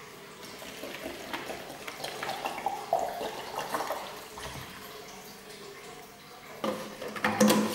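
Water poured into a glass blender jar of chopped banana peels, splashing unevenly. A few loud knocks and clatter come near the end.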